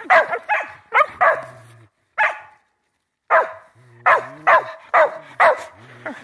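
Shetland sheepdog barking repeatedly in short, sharp barks, with a pause of about a second partway through.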